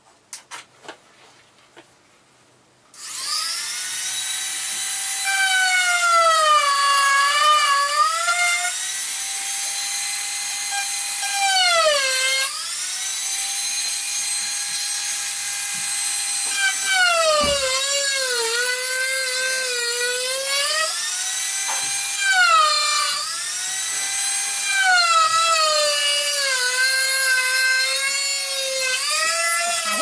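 Dremel rotary tool switched on about three seconds in, running with a steady high whine while its bit cuts a slot in rectangular PVC pipe. The pitch sags and wobbles each time the bit is pressed into the plastic and the motor loads down, then climbs back when the pressure eases.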